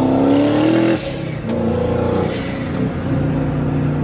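Twin-turbo LSX V8 in a Camaro accelerating under load, heard from inside the cabin: the engine pitch rises for about a second, drops back, climbs again, then settles into a lower steady drone.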